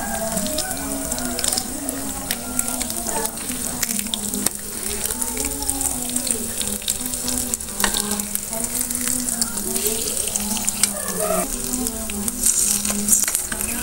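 Eggs sizzling as they fry in oil in the cups of a non-stick multi-cup egg pan. Scattered clicks and scrapes come from a small spatula working the eggs in the pan.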